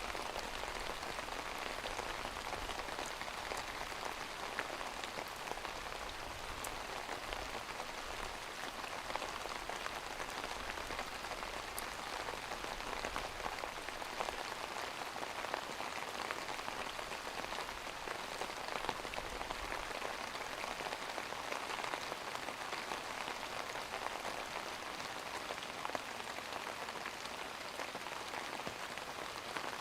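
Steady rain falling: an even hiss of rain on a surface with scattered single drop ticks. A low rumble underneath stops about two-thirds of the way through.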